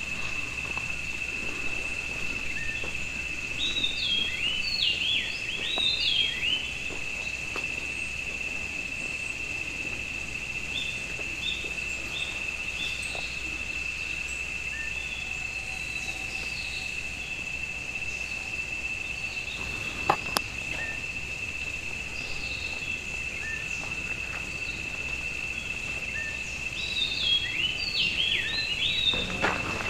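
Outdoor autumn ambience: a steady, high-pitched insect trill runs throughout while small birds chirp. The chirping comes in quick flurries about four seconds in and again near the end, with scattered single calls in between. A single sharp click sounds about two-thirds of the way through.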